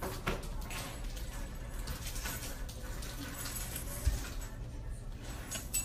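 Store room tone: a steady low hum with a few faint knocks, one short low thump about four seconds in.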